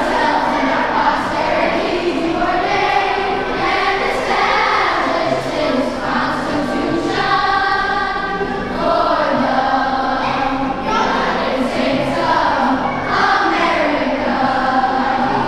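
A group of schoolchildren singing a song together as a choir.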